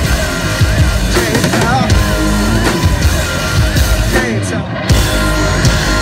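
Live rock band playing loud: heavy drums, distorted guitar and a warbling synth line, with a short break in the music near the end before the full band comes back in.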